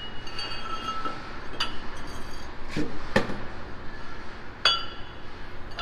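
Metal car brake parts clinking against each other as old parts are taken off and new ones fitted: about five sharp clinks, each with a brief metallic ring.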